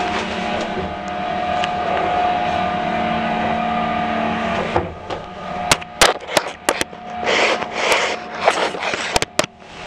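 Old Express Lift car travelling in its shaft, a steady mechanical hum with a held whine. About five seconds in the hum stops and a run of sharp clicks and short rattling clatters follows as the lift halts at a floor.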